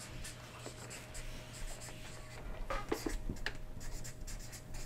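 Felt-tip marker writing on chart paper hung on a wall: a run of short scratching strokes, busiest around the middle.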